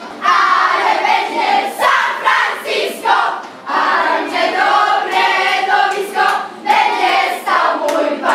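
A group of girls singing and shouting together loudly as a crowd, in short overlapping phrases.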